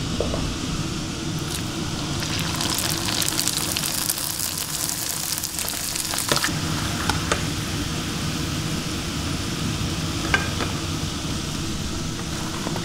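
Homemade wontons (pangsit) deep-frying in hot oil in a small pan, sizzling and crackling. The crackle is loudest for a few seconds starting about two seconds in. Under it is the steady hum of a running kitchen extractor hood.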